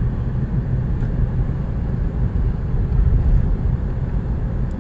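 A car driving along a road, with engine and tyre noise heard from inside the cabin as a steady low rumble.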